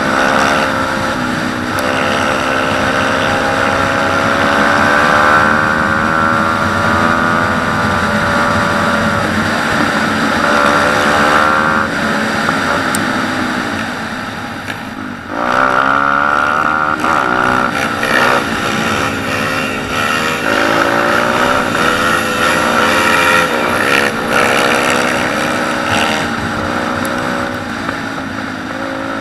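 Pit bike's single-cylinder four-stroke engine under way, heard from the rider's seat, its pitch climbing and falling as the throttle and gears change. About halfway through the revs drop sharply and then climb straight back up.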